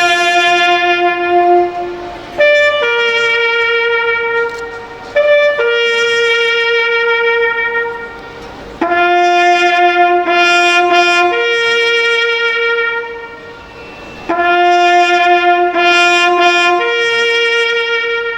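A solo trumpet playing a slow call of long held notes in phrases, with brief breaks between them: the call played for a moment of silence.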